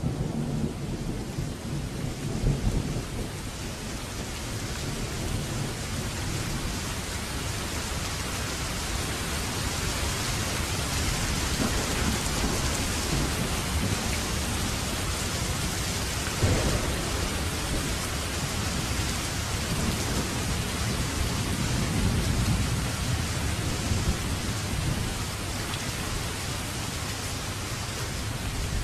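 Steady heavy rain with low rumbling thunder, heaviest near the start and again later on, and one sharp crack about halfway through.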